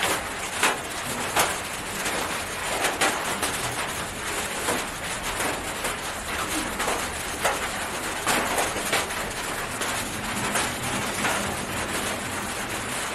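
A hen pecking food out of a hand, giving irregular light taps about once a second, over a steady hiss.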